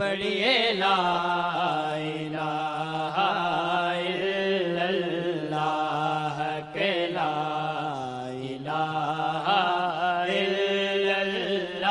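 Male voices chanting a hamd, a devotional Urdu/Saraiki hymn in praise of God, into microphones. A wavering, ornamented melody runs over a steady low drone, with a short breath-break about two-thirds of the way through.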